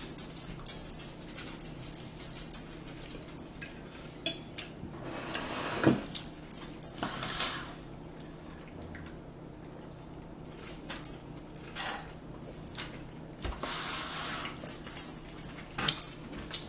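Metal forks clinking and scraping on plastic plates while people eat, in many short irregular clicks and taps, with two longer, noisier stretches about five and fourteen seconds in.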